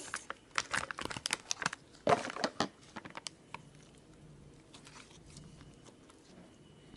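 Clear-base slime being squished and pulled in the hands, making a quick run of sticky clicks and crackles through the first three seconds or so, fewer after that.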